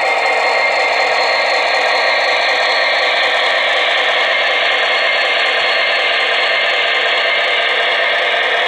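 MTH Proto-Sound system in an HO-scale SD70ACe model locomotive playing a steady diesel engine running sound through its small speaker, thin and hissy, as the model moves along the track.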